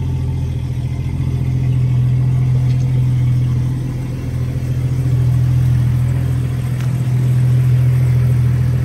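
Jeep Cherokee XJ engine idling: a steady low rumble that swells a little a couple of seconds in and again in the second half.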